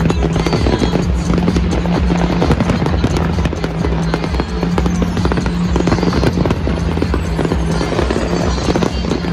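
A fireworks display going off in rapid, dense bangs and crackles over loud music with a steady bass note.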